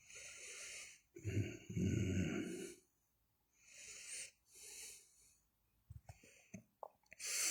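A man's breathing in the pause between recited phrases: a long, noisy inhale about a second in, fainter breaths in the middle with a few small mouth clicks, and another breath drawn near the end.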